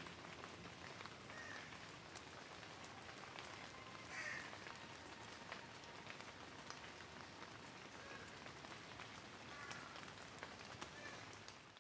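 Light rain falling: a faint, steady patter with scattered drops ticking, and a few faint bird chirps now and then.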